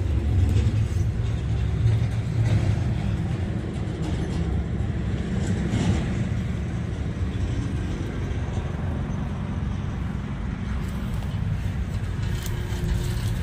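Road traffic on a highway: a steady low rumble of passing vehicles.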